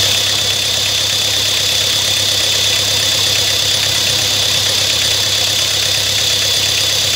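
Tata Indica Vista engine idling steadily, heard close up under the open bonnet, with a steady high-pitched whine over it. The engine is losing a lot of coolant, which is taken for a head gasket fault.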